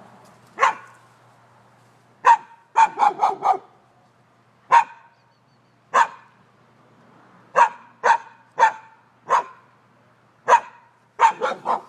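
Dog barking repeatedly in short, sharp barks: some single, spaced a second or so apart, and two quick runs of three or four barks, one near the start and one at the end.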